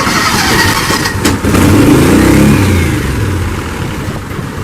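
A small vehicle engine revving up, its pitch rising and then falling, and fading as the vehicle drives off.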